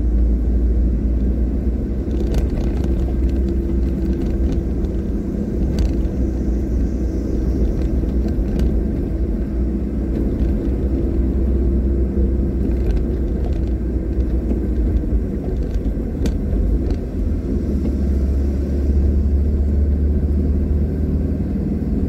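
Car driving along a road, heard from inside the cabin: a steady low engine and road rumble with a faint humming tone and a few light ticks.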